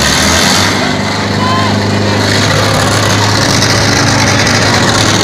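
Tractor diesel engine running loud and steady, with a crowd shouting around it.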